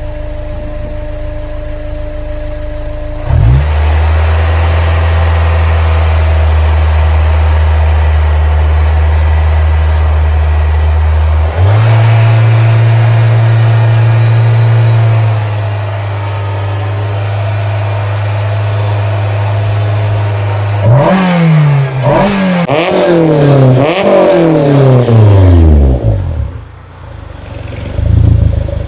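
Honda S2000's F22C inline-four running after its timing-chain service: a steady run that steps up in engine speed partway through, then four or five quick throttle blips rising and falling, and one more rev near the end.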